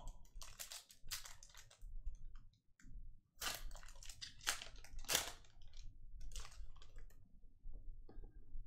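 Foil trading-card pack being torn open, its wrapper crinkling in several short rustling bursts.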